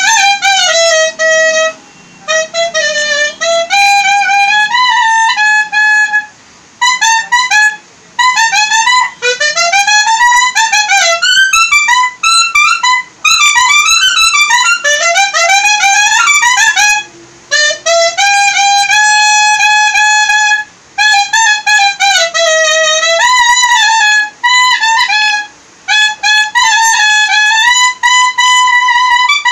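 Solo clarinet playing a melody in phrases with short breaths between them, the notes bending and sliding, with quick ornamented runs in the middle.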